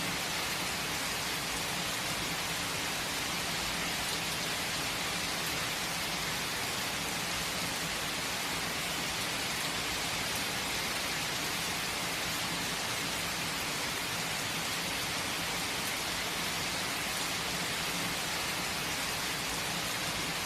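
Steady rain falling: an even, unbroken hiss that neither builds nor lets up.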